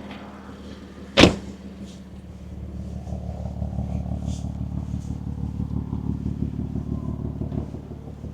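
A single sharp bang, a car door shutting, about a second in, over the low rumble of the BMW M4's S55 twin-turbo inline-six. The engine then grows louder with a steady pulsing beat for a few seconds before easing off near the end.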